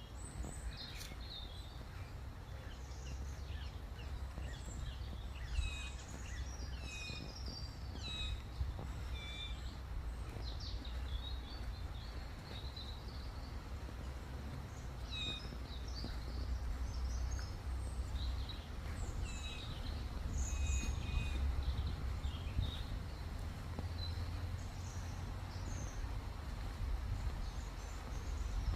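Small woodland birds chirping and calling in quick, scattered short notes, some clusters and some single calls, over a steady low rumble.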